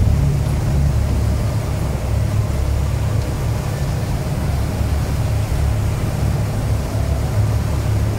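Steady low rumble of a large motor yacht's engines under way, with the rushing of its churning wake.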